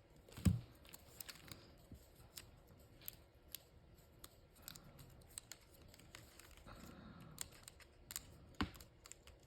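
Quiet handling of small paper pieces on a craft table: scattered light clicks and soft rustling, with a knock about half a second in and another near the end.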